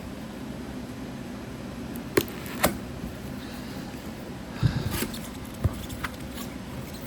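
Packaging being handled as a speaker is unboxed: a few scattered knocks and clicks, with a short patch of rustling about two thirds of the way through, over a steady low hum.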